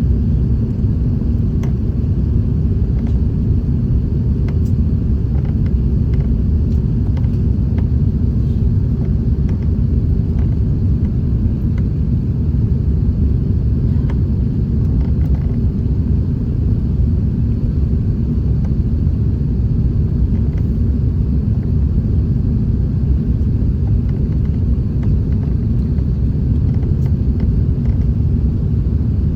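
Steady, loud low rumble of a Qantas Airbus A380's engines and airflow heard inside the passenger cabin during the takeoff climb, with a few faint cabin ticks and rattles.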